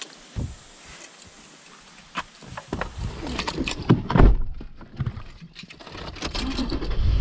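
Clicks, rustling and knocks of gear and a handheld camera being moved about while getting into a car, with the loudest thump about four seconds in. Near the end the low rumble of the car running builds up.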